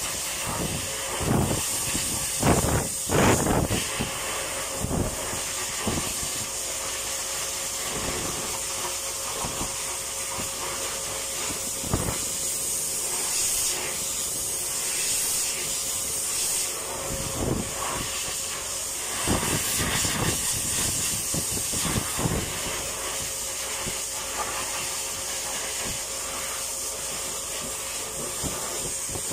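Pet grooming hose dryer running steadily, blowing air through a wet cat's fur with a strong hiss and a faint steady hum beneath. Scattered short thumps come and go, most in the first few seconds and again a little past the middle.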